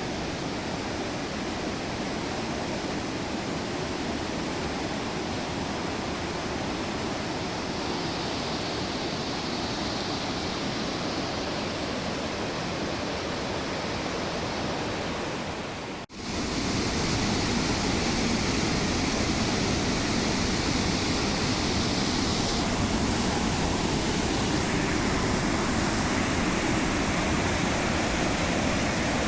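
Rushing water, a steady dense noise like a waterfall or fast river. A sudden break about sixteen seconds in, after which the rushing is louder.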